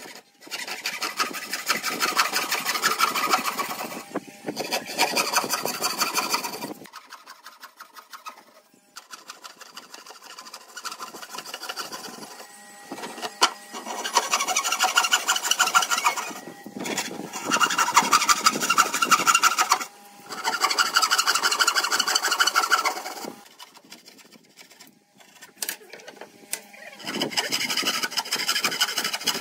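A wooden frame saw cutting kerfs into the end of a softwood board by hand: fast back-and-forth rasping strokes in runs of a few seconds, with short breaks between cuts.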